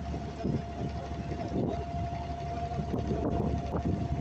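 Wooden abra water taxi's engine running steadily under way: a low rumble with a steady whine above it.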